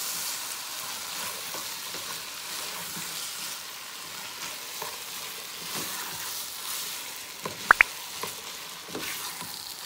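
Ground beef and diced potatoes sizzling in a hot frying pan as they are stirred: a steady sizzle with faint scattered scrapes. Two sharp clicks near the end.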